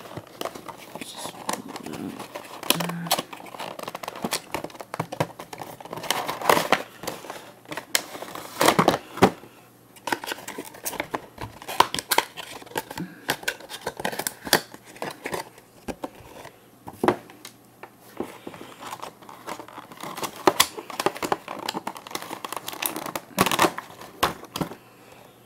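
Cardboard box and plastic packaging being handled and opened: irregular crinkling and rustling with many sharp clicks and taps.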